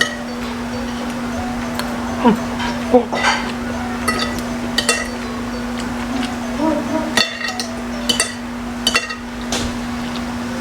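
Spoon and fork clinking against a bowl and plate while eating, several sharp, separate clinks spread through, over a steady low hum.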